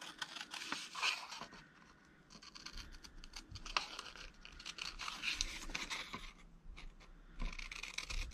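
Scissors cutting paper: a quiet run of short, crisp snips and rasps of the blades through the sheet, with a brief lull about six and a half seconds in.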